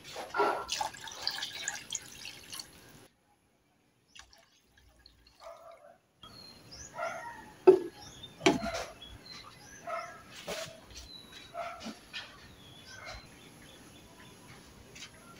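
A spatula stirring chicken in broth in a wok, with liquid sloshing and dripping. After a short silent gap, a glass lid is set onto the wok, and sharp knocks and clinks come from around eight seconds in, the first one the loudest.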